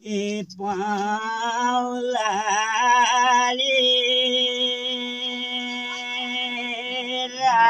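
Two elderly men singing a Nepali village song unaccompanied, the melody drawn out with bends in pitch, then held as one long steady note through the second half.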